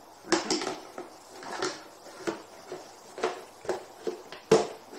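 Plastic frame of a lawn mower grass catcher knocking and clattering as it is handled and fitted: a series of sharp, irregular knocks, the loudest near the end.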